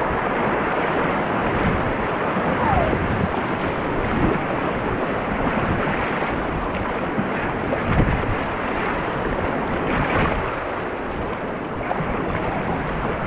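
River rapids rushing steadily around an inflatable kayak as it is paddled through whitewater, with wind buffeting the microphone.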